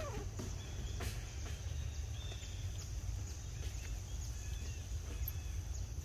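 Outdoor ambience: a steady low rumble with a few faint, short high chirps and light clicks or rustles.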